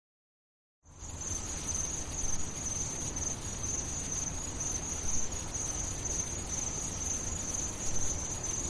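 A steady, high-pitched insect chirring over a low rumble, starting about a second in after dead silence.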